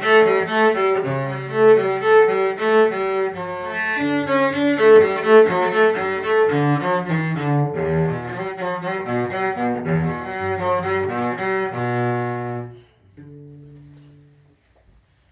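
Solo cello bowed with a short minibow worked close to the frog, playing a steady run of separate notes. The playing stops a little under 13 seconds in, and a faint tone lingers and fades away.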